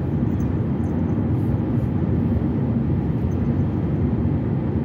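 Steady low rumble of road and engine noise inside a car cabin.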